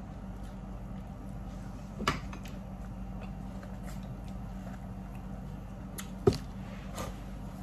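Mouth sounds of eating corn on the cob and seafood: faint chewing with two sharp clicks, about two seconds in and, louder, about six seconds in, over a steady low hum.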